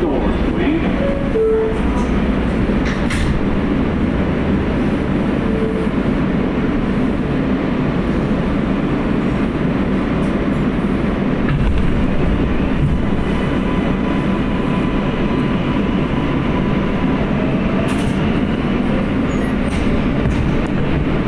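Inside an R143 subway car: steady hum and rumble from the car while it stands at a station, then the train starting off and gathering speed in the later part.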